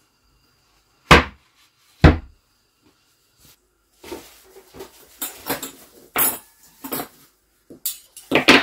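Kitchen clatter: two sharp knocks about a second apart, as of dishes set down, then a run of cutlery clinking and scraping on dishes while a freshly baked lasagna is cut and served.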